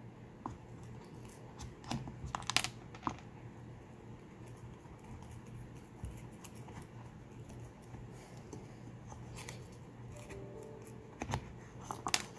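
Felo tack claw levering tacks out of a wooden board: faint scraping with scattered sharp metal-on-wood clicks, a few together near the end.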